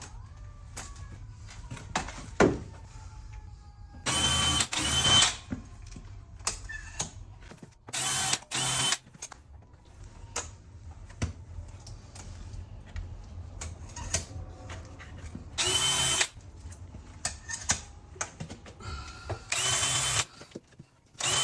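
Power drill running in short bursts of about a second, five times, each starting with a brief rise in pitch before holding steady. Clicks and knocks of handling come between the bursts.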